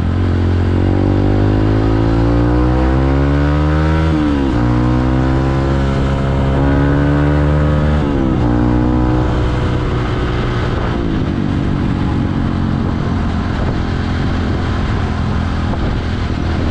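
Motorcycle engine heard from the rider's seat, its pitch climbing as it accelerates and dropping sharply at gear changes about four and eight seconds in. It then eases off into a steadier cruise about eleven seconds in.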